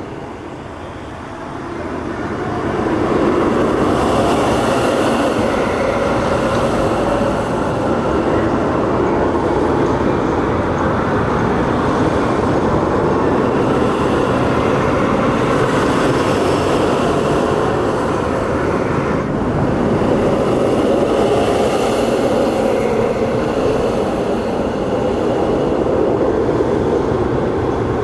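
Premier Rides launched roller coaster train on a test run, a steady rumble that swells about two seconds in and holds with slight rises and falls.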